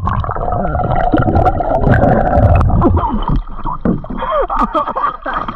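Sea water sloshing and gurgling around a camera held at the waterline, dipping under the surface and back up beside a small boat's hull.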